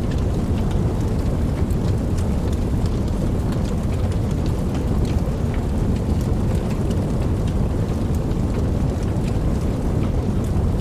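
Steady rain with a deep, even low rumble beneath it and scattered sharp ticks of individual drops; no single thunderclap stands out.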